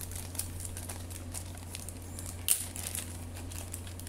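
Clear plastic bag crinkling as it is handled and opened, irregular small crackles with one sharper crackle about two and a half seconds in.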